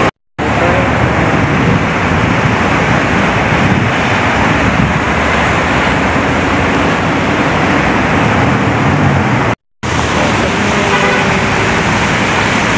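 Steady traffic noise from cars on a city street, loud and unbroken, cutting out to silence twice for a split second.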